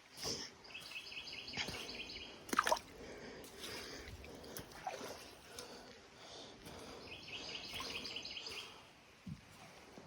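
A songbird singing two short trills of rapid repeated high notes, about a second in and again around seven seconds. Footsteps in the creek make scattered knocks and splashes, the loudest about two and a half seconds in.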